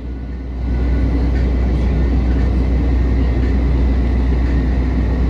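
Steady road and engine noise inside a car cabin at highway speed, a deep low rumble that gets louder about a second in.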